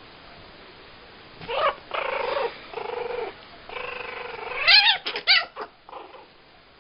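A young pet's high-pitched cries while a kitten and a puppy play-fight: a string of held cries starting about a second and a half in, the loudest a rising cry about two-thirds through, then a few quick short ones.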